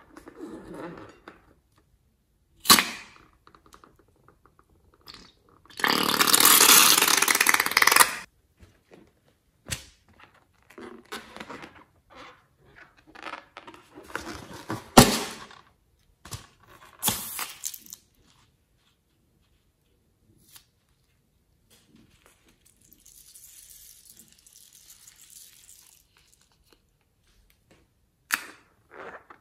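Slime-filled rubber balloons being handled and squeezed over a glass bowl of foam slime: rubbery squeaks, crackles and squelches, with a loud rush of noise lasting about two seconds some six seconds in and a sharp crack about fifteen seconds in.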